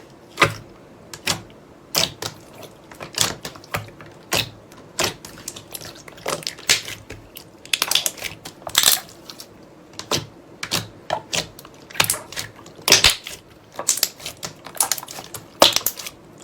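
Slime being pressed and squished by hand, giving irregular crisp clicks and pops, several in a row and then short pauses.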